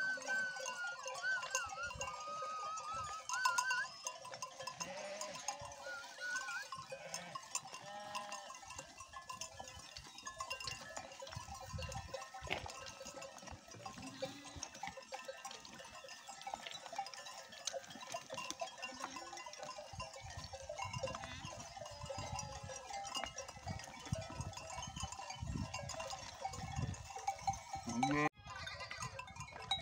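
Grazing flock of sheep and goats, their neck bells clinking and ringing continuously in many overlapping tones, with occasional bleats.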